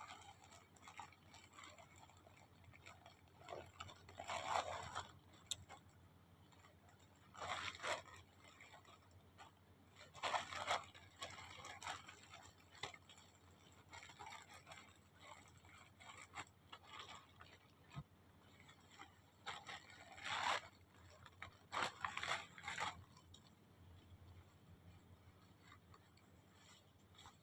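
Parcel packaging being handled and opened: bouts of crinkling and scraping, several louder ones about a second long, with smaller crackles in between.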